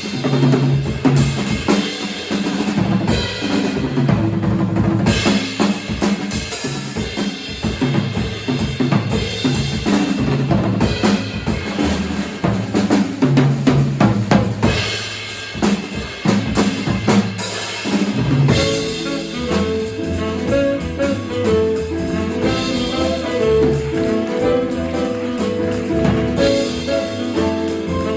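Jazz drum kit playing busy solo-style figures on snare, bass drum and cymbals, with a bass line underneath. About two-thirds of the way through, the rest of the jazz quartet comes back in with sustained pitched notes.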